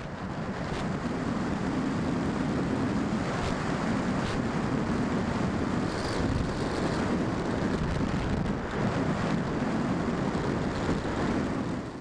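Steady rush of air over a camera mounted on a Göppingen Wolf scale glider in flight, cutting off abruptly at the end.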